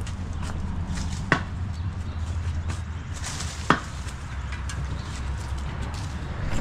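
A long-handled shovel chopping into soil and roots to cut a bed edge, with two sharp strikes about a second and a half and nearly four seconds in, and small crunches and scrapes between them. A steady low rumble runs underneath.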